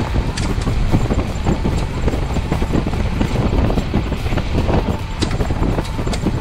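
Graham-Paige 612's six-cylinder engine running as the car drives along a gravel road, heard from a camera mounted on the car's body, with a steady rumble and many irregular knocks and crunches from the tyres and bodywork on the rough track.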